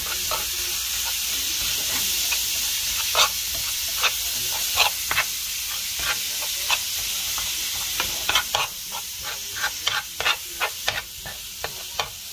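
Raw ground beef sizzling in a hot frying pan as a metal spoon breaks it apart, with irregular scrapes and taps of the spoon against the pan over a steady hiss. The taps come more often in the last few seconds.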